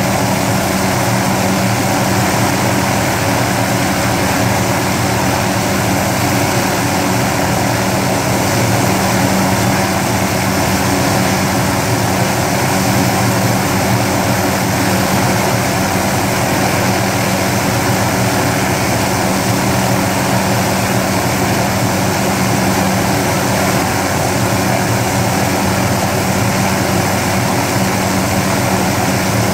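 An MD 500-series light helicopter running on the ground, its turbine engine and spinning main rotor holding a steady pace as it warms up before lifting off. The sound stays even, with no rise or fall.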